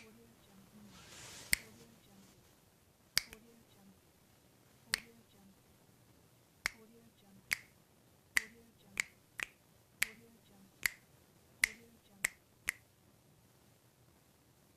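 Fingers snapping, thirteen single snaps: slow and evenly spaced at first, then quicker and less even in the second half.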